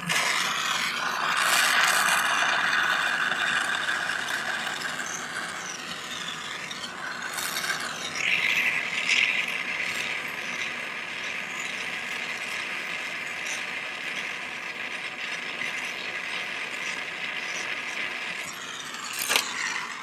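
Jeweller's gas soldering torch burning: a steady rushing hiss with faint whistling tones, as the flame heats a sterling silver ring to flow hard solder. It cuts off just before the end.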